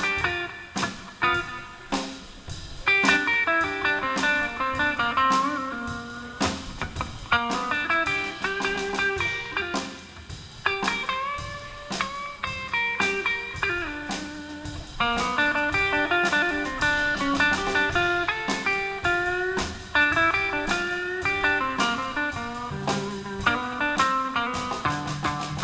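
Live blues band playing an instrumental intro: electric lead guitar out front, its notes bending, over a steady drum beat and bass.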